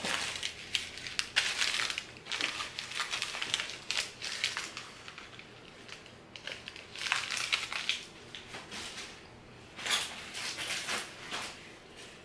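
Plastic bag and packaging crinkling and rustling as items are rummaged through and pulled out, in bursts with short pauses.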